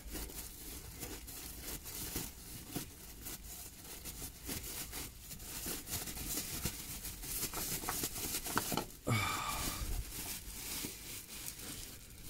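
Plastic bag crinkling and rustling around an oil filter as hands work it loose in a cramped engine bay, with scattered small clicks; a brief vocal sound about nine seconds in.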